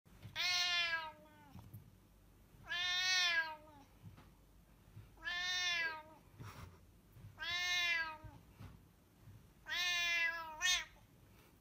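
A cat meowing loudly five times, each drawn-out call about a second long and spaced roughly two and a half seconds apart. These are angry, complaining meows at a hand touching its head.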